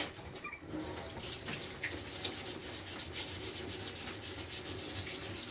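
Water running steadily from a kitchen tap into a sink, coming on about a second in, just after a click.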